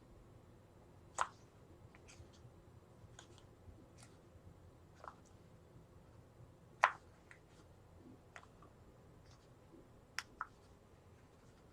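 Scattered small clicks and taps from hands handling wires and small parts at a workbench. The two sharpest come about a second in and near seven seconds, and a quick double click follows a little after ten seconds.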